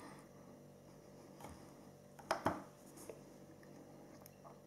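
Quiet room tone with a few light clicks and taps from small objects being handled on a table, including a sharper pair about two and a half seconds in.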